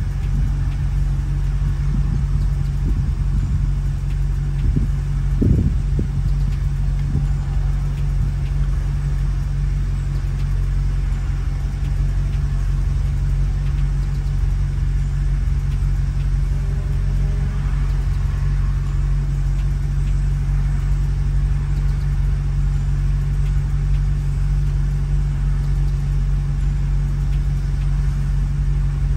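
Maserati GranTurismo's V8 idling with a steady low hum, heard from inside the cabin.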